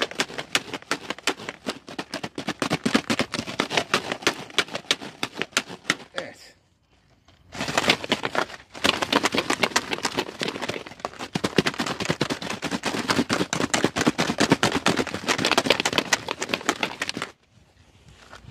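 A Honda CB 125 E's roller drive chain being shaken in petrol inside a plastic drink bottle: a fast, loud clatter of metal links against the bottle walls as the petrol washes off the grime. It pauses for about a second partway through, then goes on and stops shortly before the end.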